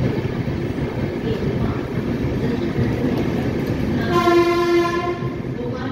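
Indian express passenger train rolling slowly into a station, heard as a steady low rumble from the coach doorway. A horn blast of about a second sounds a little past halfway through.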